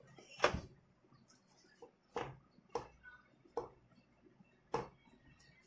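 Hands pulling apart and dropping ghee-coated shredded kunafa dough into an aluminium baking tray. The sound is soft rustling with about five louder brief rustles or taps at irregular intervals.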